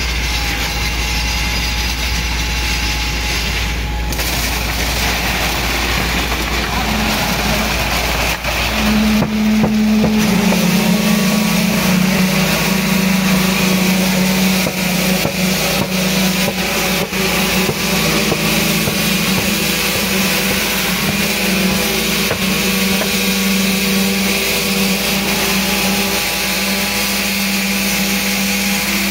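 Concrete pump's engine running with a low rumble, then about nine seconds in a concrete poker vibrator starts up and runs with a steady motor hum while it consolidates concrete in a column form.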